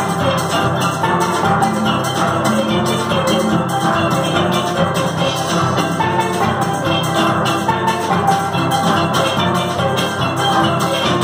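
Steel pan band playing together: many steelpans struck with sticks, a continuous stream of quick, ringing pitched notes over steadier lower pan notes.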